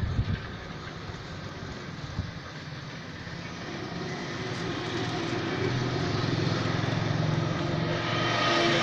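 Road traffic with a motor vehicle's engine running steadily, its drone growing louder from about four seconds in and peaking near the end. A few gusts of wind hit the microphone at the start.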